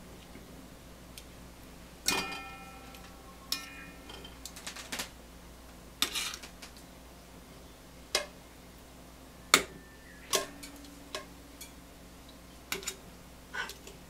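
Stainless steel tongs clinking and tapping against enamelware and a metal cooking pot, about a dozen scattered sharp clinks, a few of which ring briefly; the loudest comes about two thirds of the way through.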